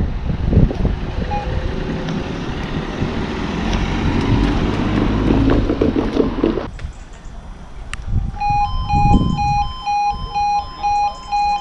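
Road noise from a car driving over the crossing as the barriers rise. About seven seconds in, the automatic half-barrier level crossing alarm starts: a steady pulsing beep, about two a second, with a higher warbling tone over it, sounding as the amber road lights come on to warn that the barriers are about to come down.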